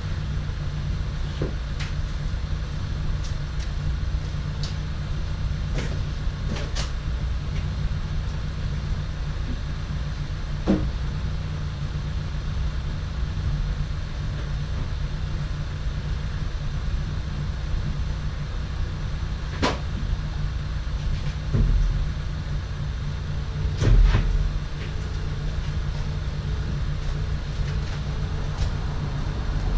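A steady low mechanical drone, with a few sharp knocks and clunks from handling around the car, and a heavier thump a bit past two-thirds of the way in.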